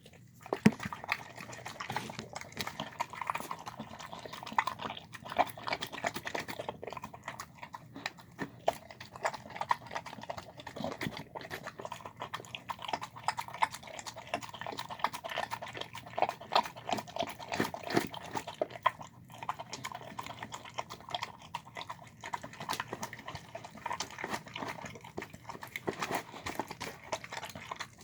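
A dog eating a wet, chunky chicken-and-rice mash, with a steady run of irregular wet smacks and clicks of its mouth, several a second.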